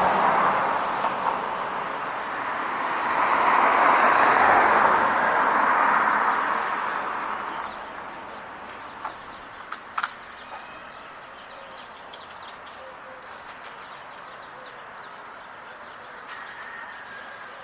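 A car passes on the road, its tyre and engine noise swelling to a peak about four seconds in and fading away by about seven seconds. After that the background is quieter, with faint bird chirps and a sharp click about ten seconds in.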